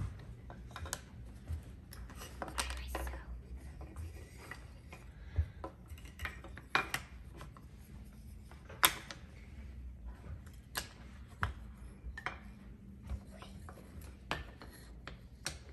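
Wooden jigsaw puzzle pieces being handled and set into a wooden board: scattered small clicks and taps, the sharpest about nine seconds in.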